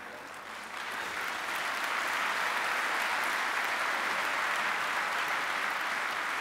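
Audience applauding; the clapping swells about a second in and then keeps up steadily.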